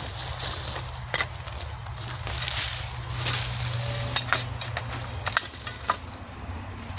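Boots stepping on and tamping loose soil among dry leaves and twigs, a crunching rustle with several sharp snaps, over a low steady hum.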